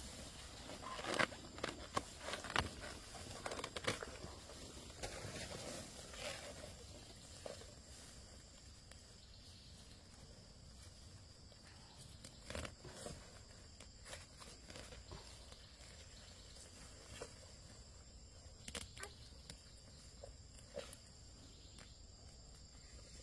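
Scattered knocks and rustles, most of them in the first several seconds, over a faint, steady, high-pitched drone of insects.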